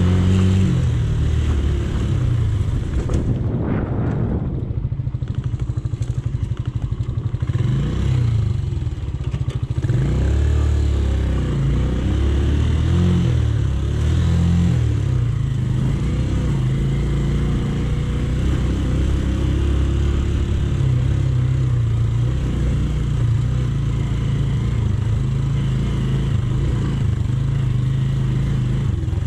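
Romet K125 motorcycle's 125cc engine running under way on a dirt track, the revs rising and falling several times as the rider works the throttle.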